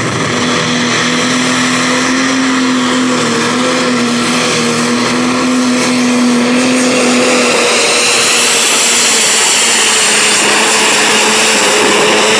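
Pro Stock pulling tractor's turbocharged diesel engine running flat out under load as it drags the sled down the track, with a steady engine note and a high whine that rises about two-thirds of the way through.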